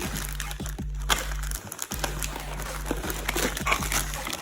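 Plastic packaging crinkling and crackling as a mystery toy pack is unwrapped by hand.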